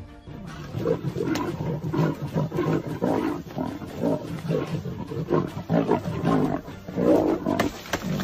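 A big cat vocalising: a run of short, low calls about two to three a second, starting about half a second in.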